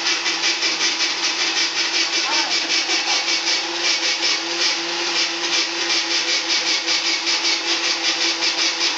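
Ice shaver running, shaving a block of ice into snow for patbingsu: a steady motor hum with a gritty hiss that pulses evenly, about five times a second.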